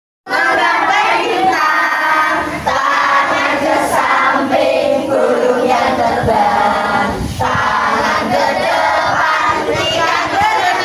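A class of young children singing a song together in chorus. The singing starts after a split-second silent gap at the very start.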